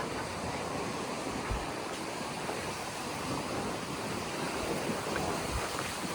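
Mediterranean sea waves breaking and washing ashore in a steady rush, with wind buffeting the microphone in a couple of low thumps.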